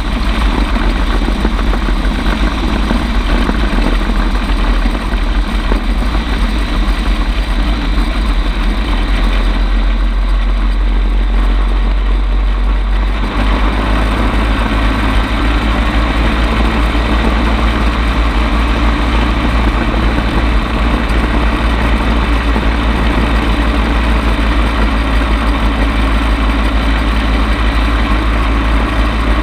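Bensen B7M gyrocopter's engine running loud, heard on board. The engine eases off for a few seconds as the gyrocopter settles low over the runway, then opens up abruptly about thirteen seconds in for a touch-and-go climb-out.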